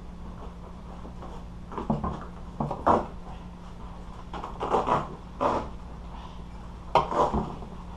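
Hand-work noises: a scattered series of short clicks and knocks from parts and tools being handled, over a steady low hum.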